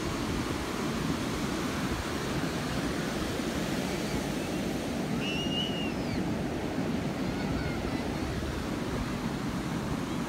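Ocean surf breaking and washing up over wet sand, a steady rushing wash of waves and foam.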